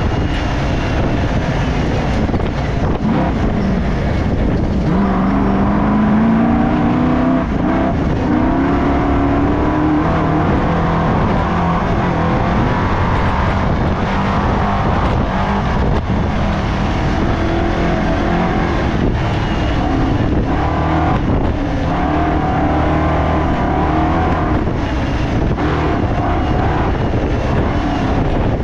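Race car engine running hard, its pitch rising and falling as it accelerates and eases off, over steady wind and road noise.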